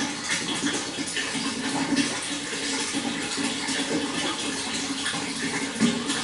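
Running water splashing steadily, with small irregular splashes.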